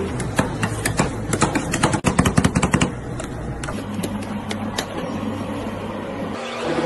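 Metal spatulas chopping and tapping on a stainless-steel rolled-ice-cream cold plate, working cream and cookie pieces into a frozen sheet: rapid metallic clicks, fastest from about one to three seconds in, then sparser taps.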